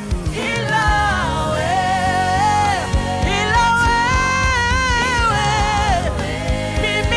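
Gospel worship song: a singer holds long, gliding notes over a live band accompaniment with a steady beat.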